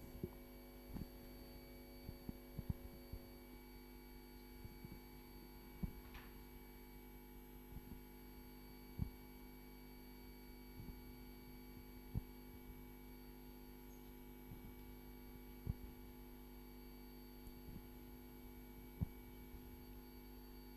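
Low, steady electrical hum made up of several steady tones, with about six faint knocks scattered a few seconds apart.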